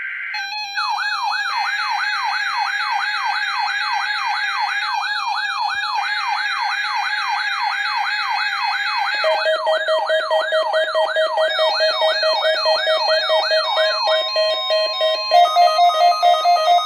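Weather alert radios going off for a NOAA Weather Radio Required Weekly Test. The broadcast's buzzy digital SAME header comes in three bursts. Over it, a receiver's siren alarm sweeps up in pitch a little over twice a second. Part way through, pulsing beeps from another receiver join in, and near the end come a steady tone and beeps alternating high and low.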